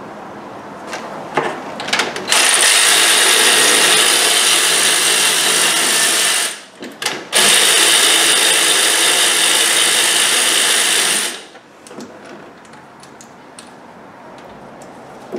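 A handheld power tool runs in two steady bursts of about four seconds each, with a short break between them. Sharp metal clicks of tool handling come before and after.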